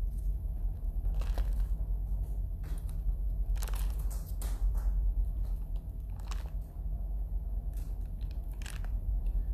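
Steady low rumble of room noise with a handful of short, scattered rustles and clicks.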